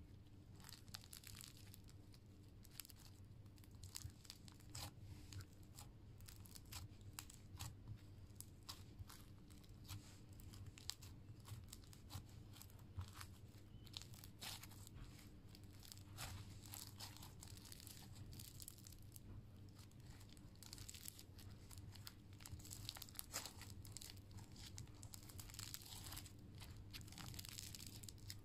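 Faint crunchy slime with blue beads crackling and popping in many quick, irregular clicks as fingers squeeze, poke and press it.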